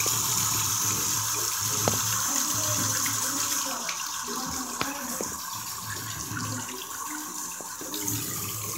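Bathroom sink faucet running steadily, water splashing into the basin, a little quieter from about four seconds in.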